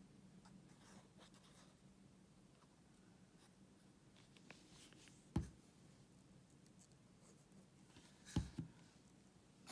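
Faint rubbing and rustling of paper being handled and pressed down by hand, with two light knocks on the work surface about five and eight seconds in.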